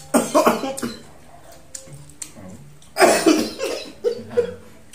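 A man coughing hard, set off by spicy chili sauce: one fit right at the start and a louder one about three seconds in, followed by a couple of short coughs.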